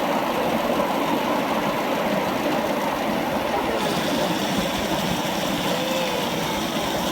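Ride-on miniature railway train running along its track: a steady, even rumble of wheels and running gear heard from on board.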